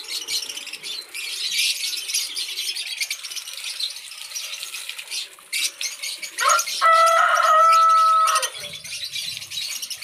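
Water from a hose spraying and splashing onto potted aloe plants and wet concrete, a steady hiss. About six and a half seconds in, a loud high held tone rises briefly, holds steady for about a second and a half, then stops.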